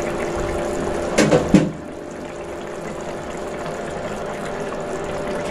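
Potato curry simmering in an open pan, a steady liquid bubbling hiss, with a couple of sharp knocks about a second and a half in.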